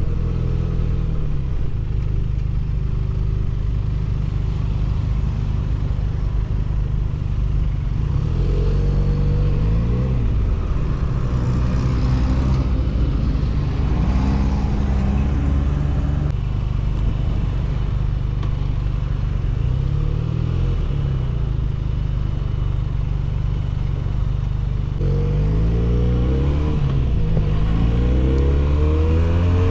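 Benelli 302S's 300 cc parallel-twin exhaust heard on board while riding, the engine note rising and falling repeatedly as the rider accelerates and shifts, with the strongest climbs in revs near the end.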